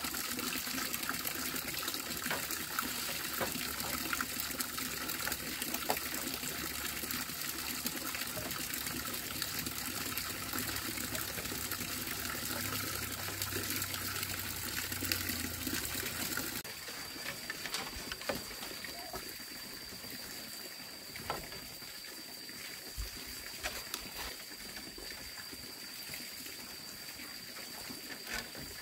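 Water trickling steadily. About two-thirds of the way through it cuts off abruptly; a quieter stretch follows with a faint steady high whine and scattered light knocks.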